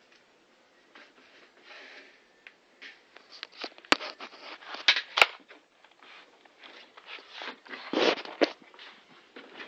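Rustling and handling noise with irregular clicks and knocks as things are moved about and the camera is jostled, with two sharp snaps about four and five seconds in.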